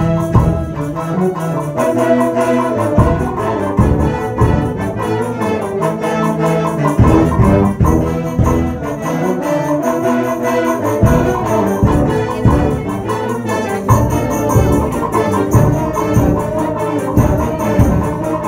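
High school band playing live: brass instruments holding full chords over a low, steady beat.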